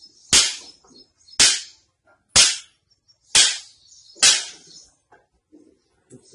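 Five loud, sharp hand slaps on a person's body, about one a second, each a crisp smack with a short ring.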